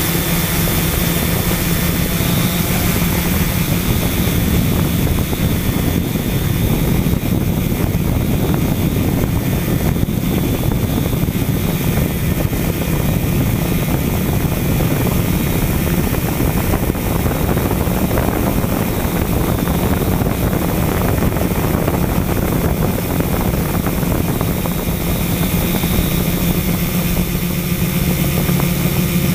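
Quadcopter camera drone's motors and propellers humming steadily, with a constant whine and a rush of air noise.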